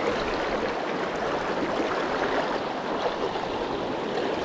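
Steady rush of river water flowing fast through a shallow, choppy riffle.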